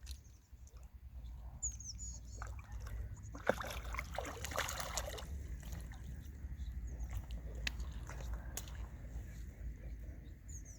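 Water splashing and sloshing for a second or two about midway, as the landed carp is handled in the shallows. A small bird chirps a few times.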